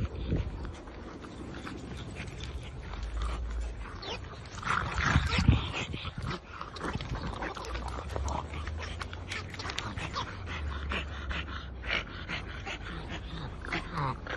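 Several French bulldogs playing together, making many short dog sounds throughout, loudest about five seconds in.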